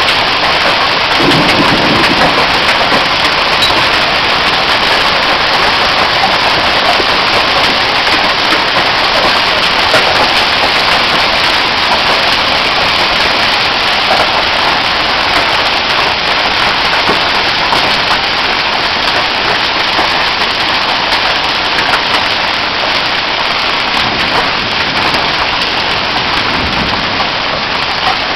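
Heavy rain mixed with hail pouring down in a steady, loud hiss, with scattered small ticks.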